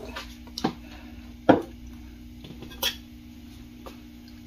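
A few short knocks and clunks as a cereal bowl and a drinking cup are handled and set down on a kitchen counter, the loudest about a second and a half in. A faint steady hum runs underneath.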